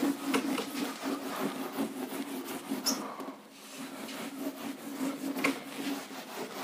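Whiteboard duster rubbing back and forth across a whiteboard, wiping off marker writing in repeated strokes, with a short pause a little past halfway.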